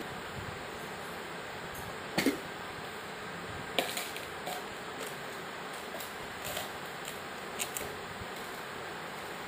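A few scattered taps and knocks, the loudest about two seconds in, from a child's hand patting play sand and a plastic cup knocking on a hard tiled floor, over a steady hiss.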